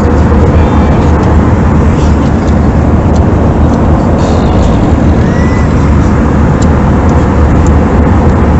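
Steady, loud cabin noise inside a jet airliner in cruise: the even rush of airflow over the fuselage and the jet engines' drone, with a deep rumble underneath.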